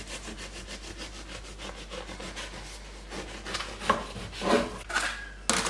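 Serrated bread knife sawing back and forth through a crusty loaf on a wooden chopping board, a quick rasping of short strokes. The strokes grow louder in the second half, with a sharp, loud one near the end.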